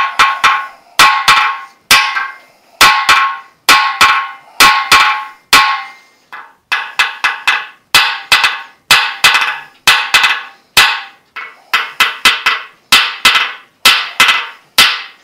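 Hammer striking a steel tool fitted over a seized cylinder-head stud in a cast-iron Ford flathead V8 block: dozens of sharp, ringing metal strikes, many in quick pairs or threes. The blows shock the corroded stud to free it, kept moderate because the block's deck is fragile.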